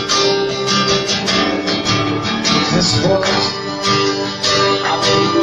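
Worship song played live: strummed guitar over held band chords, with a voice singing "Господь" in a long drawn-out line.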